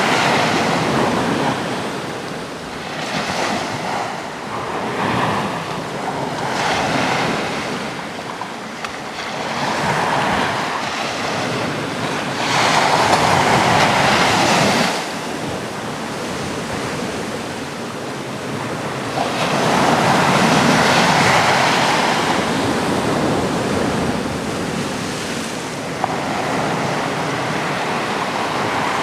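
Sea waves breaking and washing onto the shore in a continuous wash that swells and ebbs, with two louder breakers about halfway through, a few seconds apart.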